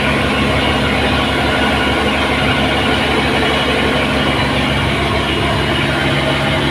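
A loud engine running steadily at an even speed: a constant low drone with a dense, unchanging noise above it.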